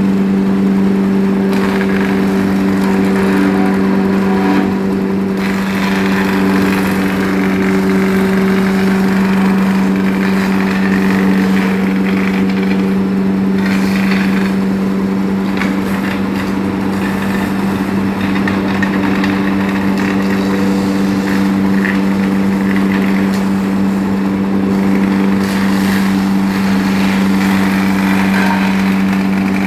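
Wood chipper's small engine running at a steady speed, a constant hum with no change in pitch.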